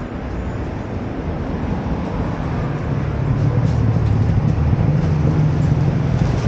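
Street traffic: a low engine rumble that grows louder about two seconds in, with faint voices in the background.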